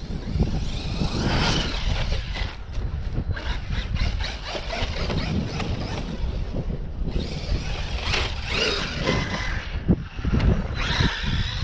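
Traxxas X-Maxx RC monster truck on 6S power driving over grass and pavement: its electric motor whines up in bursts of throttle over a steady rumble of tyres and wind on the onboard microphone. A sharp knock comes just before ten seconds in.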